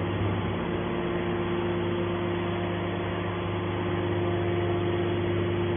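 Hydraulic baler's power unit (electric motor and hydraulic pump) running steadily: a constant hum with a steady whine above it.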